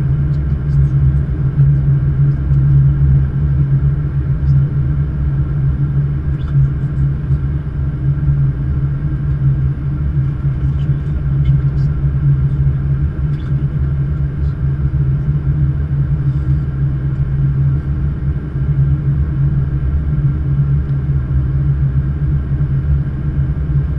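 Steady low rumble with a constant deep hum inside a Boeing 777-200's flight deck on final approach.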